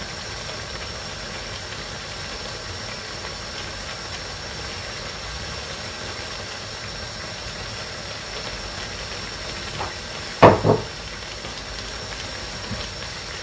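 Paella simmering in a wide pan, a steady hiss. About ten and a half seconds in, a brief loud knock, twice in quick succession.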